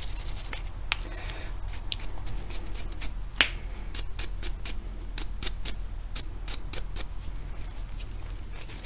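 Bronze brush scrubbing the oily, dirty action parts of a Lakefield Savage 64B .22 rifle: a run of short scratchy clicks and ticks, several a second, with a sharper click about three and a half seconds in.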